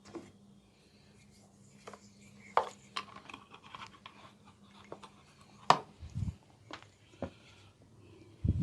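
Hands working during an oil head and neck massage: scattered sharp taps and clicks on skin and hair, with two dull low thumps later on, over a faint steady hum.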